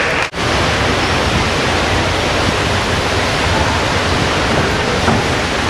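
Steady, even hiss-like ambience of a large indoor pool hall, with water movement and ventilation blended into one noise. It cuts out for an instant just after the start.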